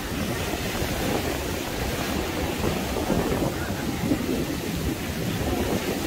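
Wind buffeting the microphone: a steady, uneven low rumble with no distinct events.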